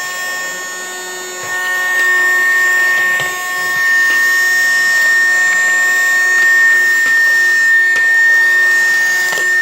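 Mini Henry vacuum cleaner running with a steady high whine, its nozzle rubbing and scraping over the floor as it sucks up dirt; a little quieter for the first two seconds.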